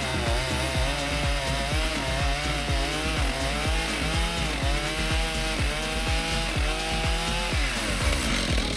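Background music with a steady beat laid over a chainsaw mill running through a log. Near the end the melody drops out and a rising tone comes in.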